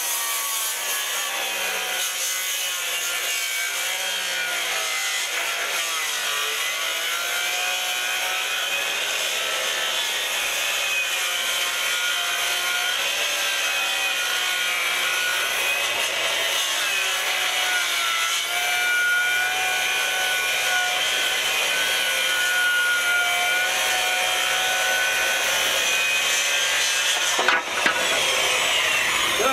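Electric saw ripping a wooden board lengthwise in one long continuous cut, its motor pitch dipping and recovering under load, with a brief break near the end.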